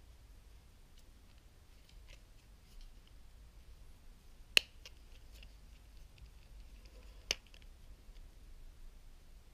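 Plastic parts of a Transformers toy figure being handled and clicked into place during transformation: faint scattered clicks, with two sharp snaps about four and a half and seven seconds in, the first the louder.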